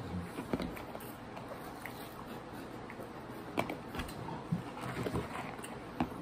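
People chewing Hot Cheetos Puffs with their mouths open to the microphone: irregular crunches and wet mouth clicks, a few sharper snaps among them.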